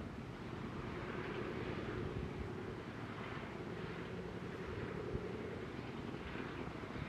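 A distant engine droning steadily under a wash of wind.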